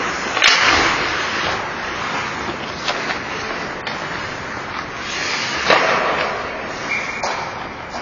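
Ice hockey play: skate blades scraping and carving the ice under a steady rink hiss, broken by a few sharp clacks of sticks and puck, the loudest about half a second in and near the six-second mark.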